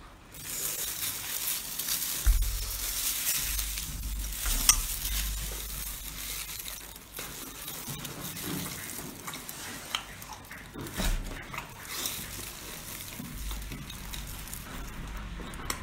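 Close-up eating sounds: a steady crackle of crisp grilled food and plastic gloves as it is torn apart and chewed, with scattered sharp crunches.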